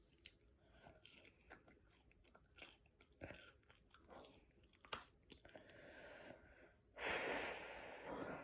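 Close-up chewing and mouth sounds of a person eating, with small wet clicks and crunches. About seven seconds in comes a louder breathy rush lasting a second and a half.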